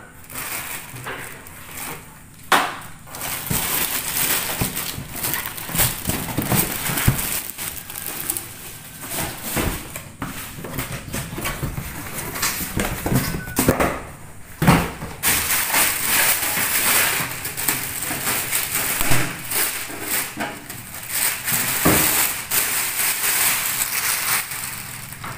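Plastic bag crinkling and cardboard box rustling as an amplifier is lifted out of its carton and unwrapped, with scattered knocks and bumps; the crinkling is densest in the second half.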